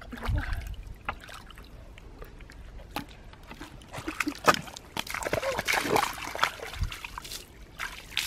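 Hands digging and scooping through soft wet mud and shallow muddy water: wet squelching and splashing with scattered sharp slaps, busiest and loudest a little past the middle.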